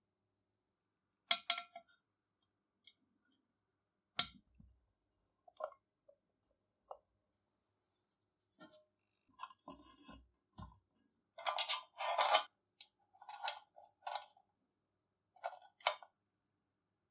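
Clicks and clinks of small metal nuts, washers and pins and the lamp's handle being handled, set down and fitted on a workbench during reassembly. There is one sharp click about four seconds in and a longer stretch of rattling about twelve seconds in.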